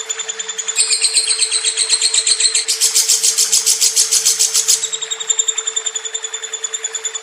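Lovebird singing a long, unbroken chattering trill of rapid high chirps, about ten a second. It gets louder and higher about a second in and again near three seconds, then eases back about five seconds in.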